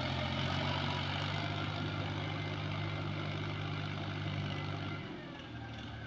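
Diesel tractor engine running steadily as the tractor drives across the field; about five seconds in, its note drops lower and a little quieter.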